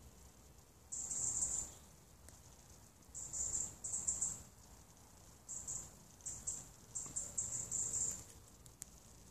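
Insects chirping in short, high-pitched trills that come and go every second or two, with a longer run of chirps near the end.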